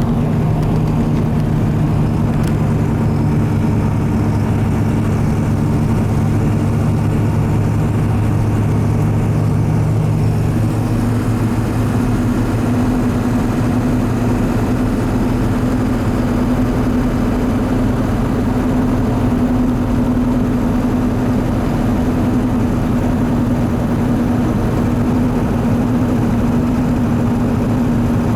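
Running 2002 Ford F-250 7.3 Powerstroke turbo-diesel with a straight-piped exhaust, heard from inside the cab while driving: a steady engine and drivetrain hum, its pitch changing about eleven seconds in. The truck has a rotating, grinding noise that the owner suspects is a bad front wheel bearing or worn tires.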